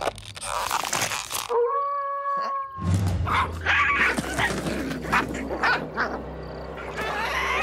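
Cartoon creature sound effects: a held, howl-like cry about two seconds in, then a rapid run of short animal cries and knocks.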